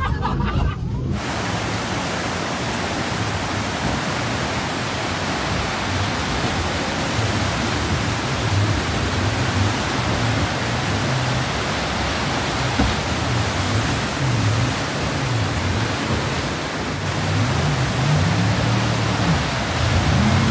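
Whitewater rapids rushing with a steady, dense roar of churning water. Underneath, a jet boat's engine drones low, rising and falling in pitch in the second half as the boat powers up through the rapids.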